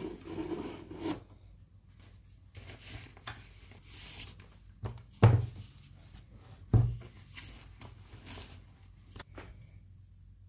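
Rustling and handling noises, with two short, dull thumps about five and seven seconds in, like objects being set down.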